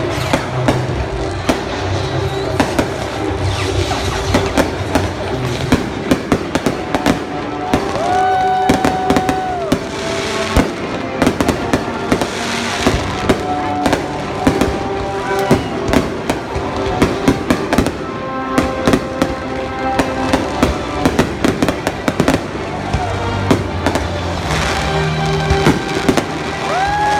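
Fireworks display going off: many sharp bangs and crackles in quick succession, with music playing underneath.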